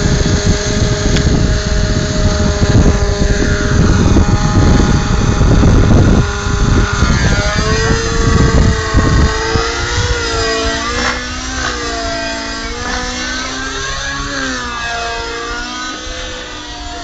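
Hirobo radio-controlled helicopter flying 3D aerobatics. Its motor and rotor give a steady whine over heavy rumbling buffeting for the first six seconds or so. After that the pitch swoops up and down again and again as the speed changes through the manoeuvres.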